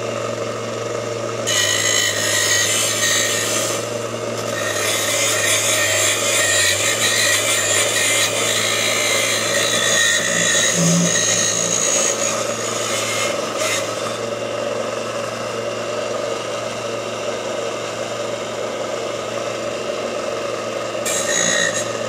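Bench sander running steadily while angle iron is held against it, grinding steel. The rasp of the metal on the abrasive is loudest from a couple of seconds in to about halfway, and comes back near the end.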